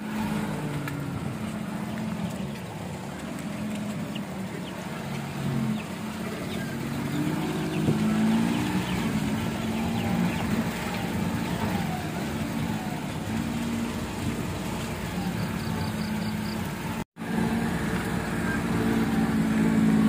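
An engine running steadily with a low hum, its pitch rising and falling a little about halfway through.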